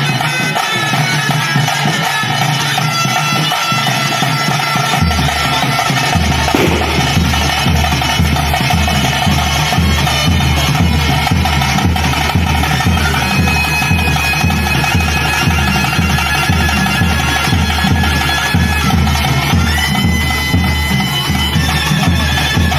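Bhoota kola ritual music: a reed wind instrument holds long, drawn-out notes over a drone, with drums. About five seconds in, a steady low drum beat enters at about two to three beats a second.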